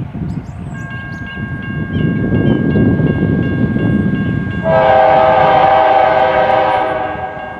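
CSX GE AC44CW diesel locomotive approaching, its engine rumble growing louder. About two-thirds of the way in, its Nathan K5LA five-chime horn sounds one long blast that fades off near the end.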